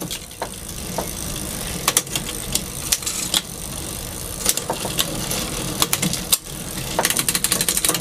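A bicycle drivetrain turned by hand in a repair stand, with the chain running over the chainrings and cogs, scattered sharp clicks from shifting, and a quick run of ratcheting clicks near the end. The front derailleur is being checked after its adjustment, which now shifts dead on.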